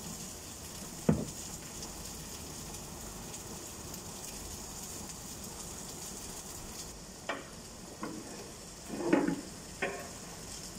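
Honey-mustard chicken pieces sizzling steadily in a ridged cast-iron grill pan over a gas burner. There is a sharp knock about a second in, and near the end come a few clicks and scrapes as metal tongs turn the chicken in the pan.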